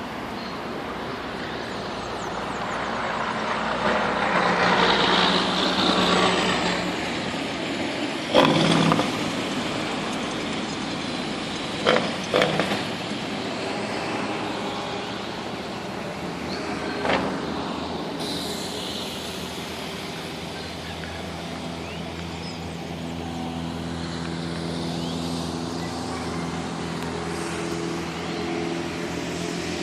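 City street traffic: motor vehicles passing and running, one swelling past about four to six seconds in. A few short loud sounds stand out, about eight, twelve and seventeen seconds in, and a steady engine hum runs through the second half.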